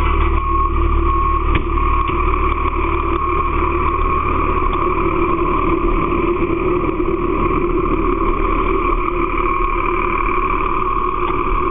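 Fire engine running at close range: a loud, steady engine drone that does not change.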